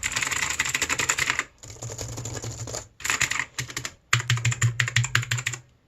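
Mechanical keyboard with clicky blue switches being typed on rapidly, in four quick bursts of keystrokes with short pauses between them.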